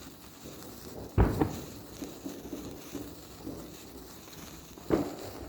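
Two sudden dull thumps, one about a second in and the louder one near the end, over a low background hiss.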